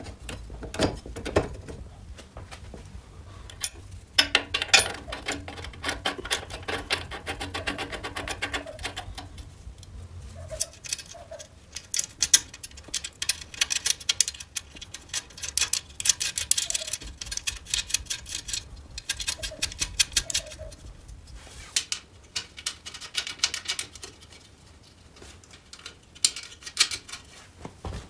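Hand tools and steel parts clicking and clattering as a motorcycle's front fork and steering head are fitted together, with long runs of quick clicks between quieter stretches.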